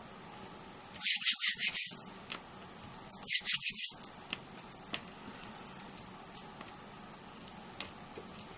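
Quick back-and-forth rubbing strokes on paper or card, in two short scratchy bursts about two seconds apart.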